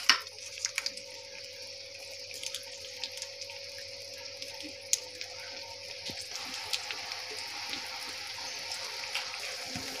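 Water with onion and sauce heating in a wok, a steady hiss of simmering with small bubbling ticks; a few clicks near the start as the sauce goes in. A steady hum sits underneath.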